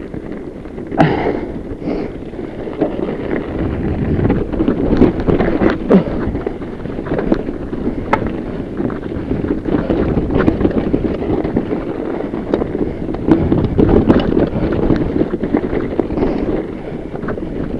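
Fat bike riding over a rough mountain trail: wind buffeting the camera microphone and a steady rumble of tyres on dirt, with frequent sharp clacks and knocks from the bike rattling over rocks and bumps.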